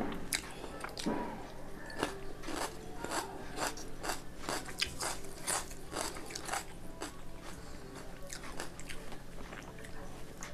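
A person biting and chewing crisp food close to the microphone, with sharp crunches about two a second that thin out after about seven seconds.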